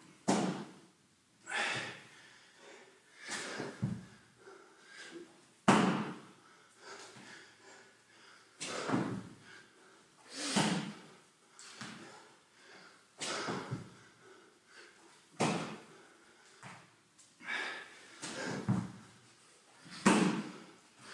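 Spider mountain climbers on a rubber gym floor: a thud with a hard breath roughly every one and a half to two seconds as the exerciser's feet and knees drive in and out.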